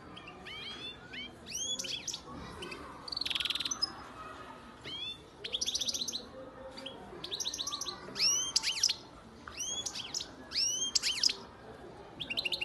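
European goldfinch singing: short bursts of quick rising chirps and fast trills, separated by brief pauses.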